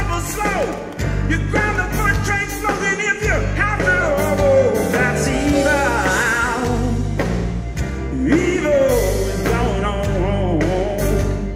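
Live electric blues band playing: drums, bass and electric guitars, with a male lead vocal bending over the groove.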